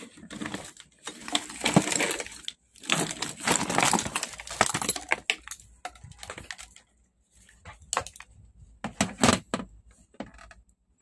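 Handling noise as an analog multimeter and its test leads are readied: dense rustling, scraping and clicks for about the first five seconds, then quieter, with a few sharp clicks about eight to nine and a half seconds in.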